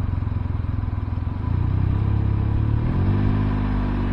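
Can-Am Ryker three-wheeled motorcycle engine running at low speed. Its pitch climbs about a second and a half in and again near three seconds as the revs rise.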